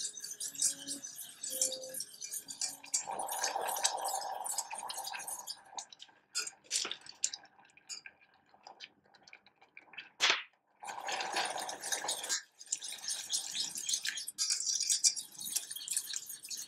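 Coil whisk scraping and clicking rapidly against the inside of a stainless steel saucepan as pineapple purée is whisked. The whisking eases off partway through, with a few sharp clicks, and then picks up again.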